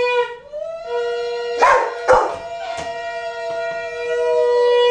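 A conch shell (shankh) is blown in long, steady ritual blasts, with a short break for breath near the start. A second, wavering tone runs alongside, and two short, loud sounds cut in at about one and a half and two seconds in.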